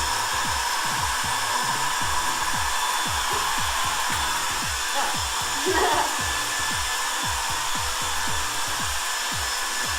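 Handheld hair dryer blowing steadily, over background music with a regular bass beat.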